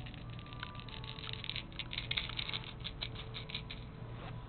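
Rapid, irregular scratchy rustling of a cloth being clawed and pulled at by a baby's hands, dying away shortly before the end.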